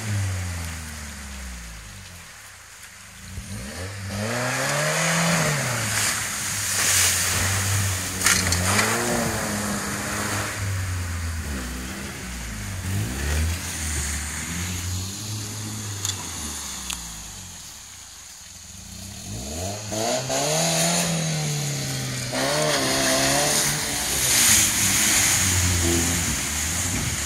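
Opel Frontera SUV's engine revving up and down repeatedly as it drives through a river ford, easing off twice, with water splashing and rushing against the body.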